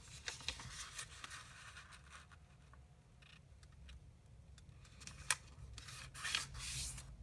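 A 15 cm square of origami paper rustling and crackling softly as it is folded corner to corner into a triangle. A sharp click comes about five seconds in, then a louder scraping stretch near the end as the fold is pressed and creased.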